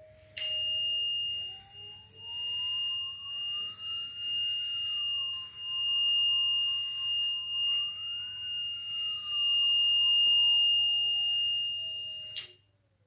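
Gendex GXDP-300 dental panoramic X-ray unit running a scan cycle. A steady high beep tone sounds for about twelve seconds while the rotating arm's motor whines, its pitch rising and falling twice; both cut off abruptly near the end.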